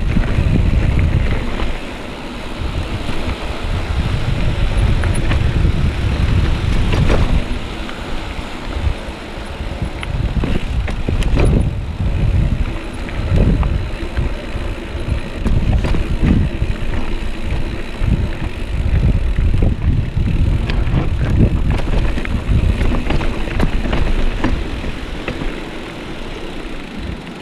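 A mountain bike ridden over rough ground, with wind buffeting the microphone and the bike rattling, with scattered sharp knocks.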